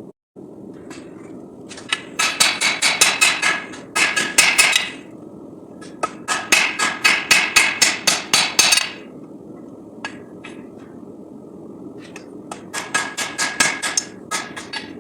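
Hand hammer striking hot SAE 5160 steel on an anvil, in four quick runs of ringing blows at about four to five a second, with short pauses between them. A steady low rush runs underneath.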